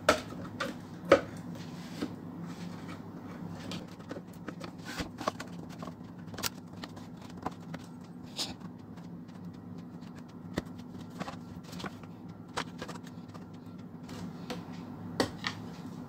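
Scattered clicks and knocks of hands handling and prying apart the panels of a Creative SBS 370 subwoofer cabinet, the loudest knock about a second in, over a steady low hum.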